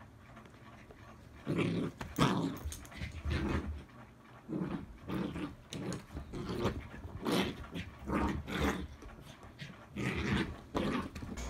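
Pembroke corgi puppy growling in play while mouthing and tugging a plush toy: a string of short growls, starting about a second and a half in.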